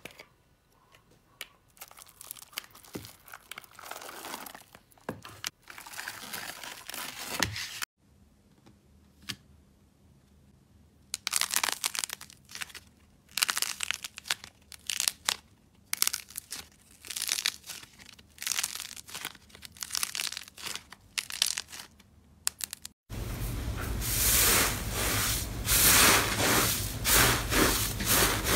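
Slime being squeezed, pressed and pulled by hand, giving irregular crackling and tearing sounds in short bursts. It moves through several slimes: clear slime full of tiny blue beads, a thick clay-like slime, and near the end a denser, louder crackling from blue fluffy cloud slime.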